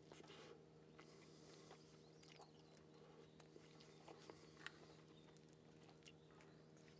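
Near silence: a steady low hum with faint scattered clicks and taps from someone eating a meal.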